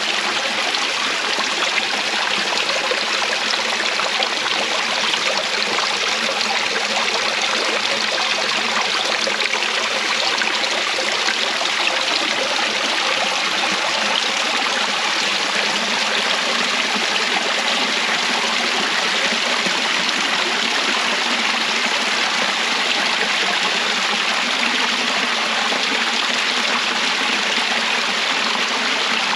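Steady rushing of a stream or waterfall: an even, unbroken wash of flowing water.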